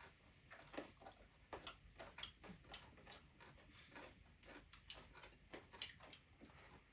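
Faint, irregular small clicks and smacks of people eating a whole chicken by hand: chewing and picking meat off the bones.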